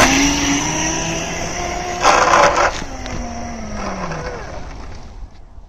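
Hustle Buzz 250 W electric kids' mini motorbike riding along, its motor whine rising in pitch at first and falling away about three to four seconds in. A brief burst of rushing noise comes about two seconds in.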